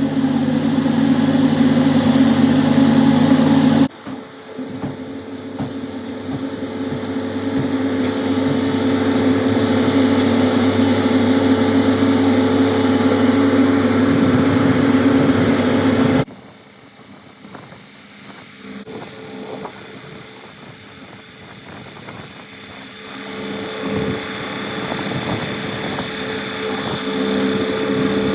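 Steady engine noise from motor vehicles or machinery. It changes abruptly about four seconds in, and again at about sixteen seconds, when it drops to a quieter engine sound that slowly grows louder toward the end.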